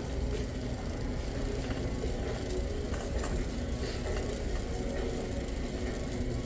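Steady low rumble of store background noise, with faint scattered clicks and rattles.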